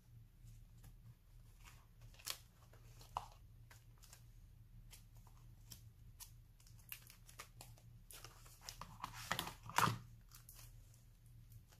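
Scattered light clicks and taps of handling stickers and paper, then the clear plastic sleeve pages of a sticker binder crinkling as they are handled and turned. This is busiest and loudest near the end, with a soft thump just before it dies down.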